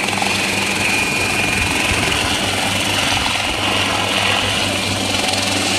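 Schweizer 300 (Hughes 269) light piston helicopter hovering close by: a steady beat of the rotor blades and the drone of its four-cylinder engine, with a high whine over it.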